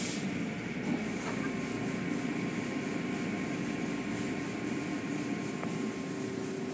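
Automatic car wash tunnel machinery running steadily: a low mechanical hum with a faint steady whine over it, as the cloth mitter curtains and brushes work over a vehicle.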